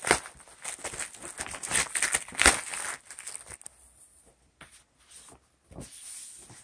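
Rustling and soft slaps of foam puzzle mat tiles being pulled off a stack and set down on a rug, busy in the first half, then only a few scattered soft taps.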